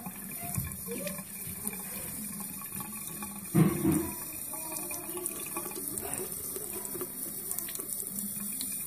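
Tap water running steadily into a sink, the stream splashing onto a cupped hand holding a giant African land snail. A brief, louder low sound comes about three and a half seconds in.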